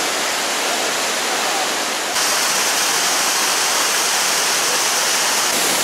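Banjhakri Falls waterfall rushing: a loud, steady wash of falling water that gets a little louder and brighter about two seconds in.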